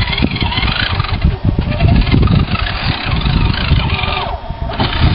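Small electric motors and gearboxes of radio-controlled scale crawler trucks whining, rising and falling in pitch with the throttle as the trucks climb a dirt mound. A low, uneven rumble underneath is the loudest part.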